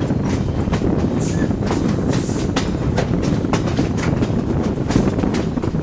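Ontario Northland mixed train rolling along the track: a steady low rumble of the cars with wheels clicking over rail joints at about three clicks a second.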